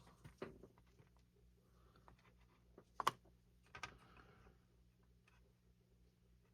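Near silence with a few faint clicks and taps from small model parts and tools being handled on the workbench, the sharpest about three seconds in, over a low steady hum.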